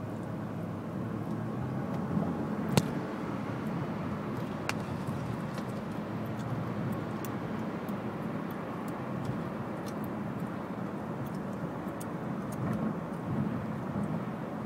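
Steady low road and engine noise inside a moving car's cabin, with a sharp click about three seconds in and a fainter one a couple of seconds later.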